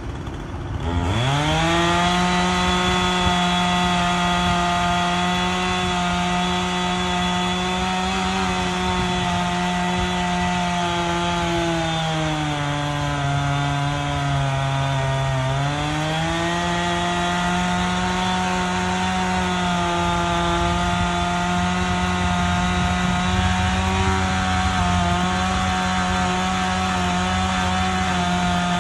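Two-stroke chainsaw revved up to full speed about a second in and held there, making the back cut through a dead ash trunk. Its pitch sags for a few seconds near the middle as the saw bogs under load in the wood, then climbs back.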